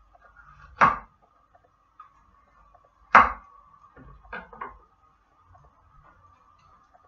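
Kitchen knife knocking on a wooden chopping board while a red pepper is sliced: a few separate knocks, the loudest about three seconds in.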